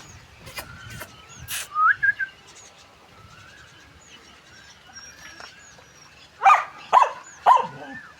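Small birds chirping, with a few sharp clicks in the first two seconds. Near the end a dog barks about four times in quick succession.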